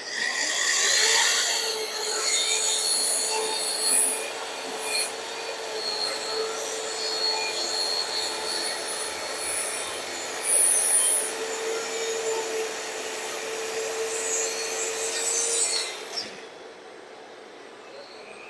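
Electric power tool working wood, running steadily for about sixteen seconds and then stopping.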